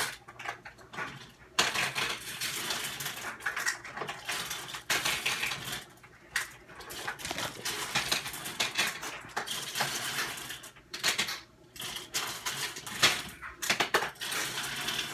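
Plastic toy dishes, a bowl and a pot, knocking and clattering in irregular short knocks as they are handled on a plastic toy kitchen.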